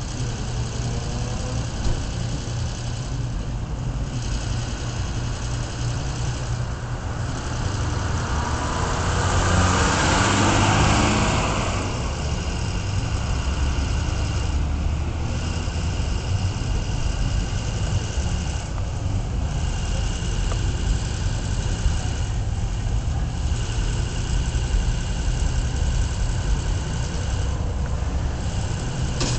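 Slow city traffic heard from inside a car: a steady low engine and road rumble, with a louder rush of noise that swells and fades about ten seconds in.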